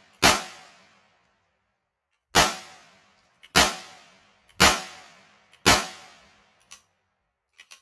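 Five shots from a Heritage Rough Rider .22 LR single-action revolver carbine: the first right at the start, then, after a pause of about two seconds, four more about one a second. Each is a sharp crack with a short fading tail, and a few light clicks come between the later shots.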